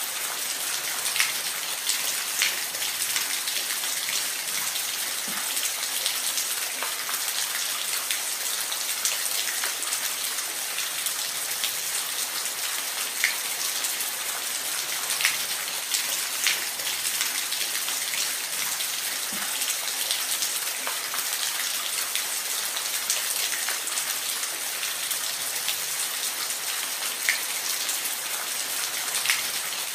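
Steady rain falling in a forest, a dense hiss with the pattering of individual drops scattered through it.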